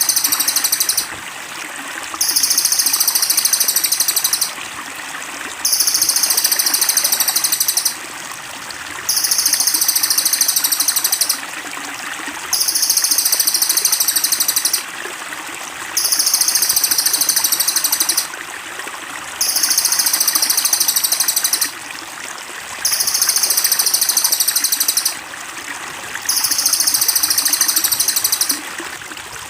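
Looped bird song for masteran training: a very high, dense trill of about two seconds, repeated every three and a half seconds, about eight times, over steady trickling water. The uploader's tags name the bird as cililin.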